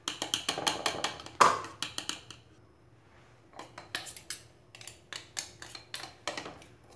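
Plastic mini food chopper being opened after blending, its lid and blade unit lifted out: a string of sharp clicks, knocks and taps in two spells with a short lull between.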